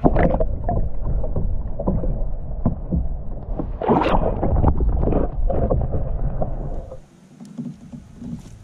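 Lake water sloshing and splashing heard through an action camera dipped under the surface: a muffled churning full of small knocks, with a louder splash about four seconds in. Near the end it cuts to open air with light wind on the microphone.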